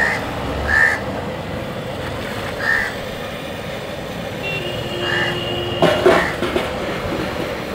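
Metal clatter of aluminium cooking bowls being knocked and set down, about six seconds in, over a steady outdoor street background. The background carries a few short, high sounds every couple of seconds and a brief steady tone just before the clatter.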